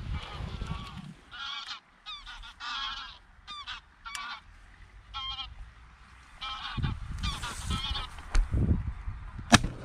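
Geese honking repeatedly in a flock, short calls one after another. A single sharp crack sounds near the end.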